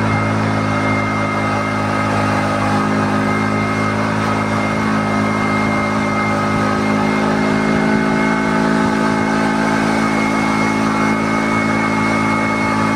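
A motor vehicle's engine and road noise heard from inside the moving vehicle, a steady drone with a few held higher tones that doesn't change.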